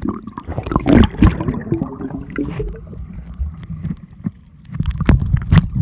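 Muffled water sloshing and bubbling around a phone's microphone dunked in a swimming pool, with irregular knocks and splashes, loudest about a second in and again near the end.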